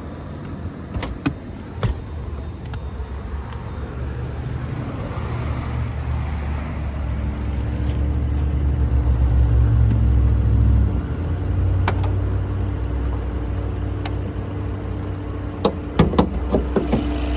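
2020 Mercedes-Benz GLS 450's turbocharged inline-six idling smoothly, a steady low hum that grows louder toward the middle. A few sharp clicks and knocks come near the start, once near twelve seconds and several near the end.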